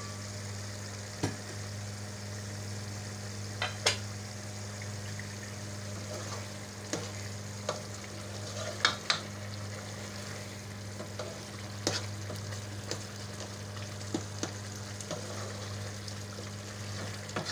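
Keema (minced meat) and tomato gravy bubbling and sizzling in a steel pot while a spoon stirs it, scraping and clinking against the pot now and then. A steady low hum runs underneath.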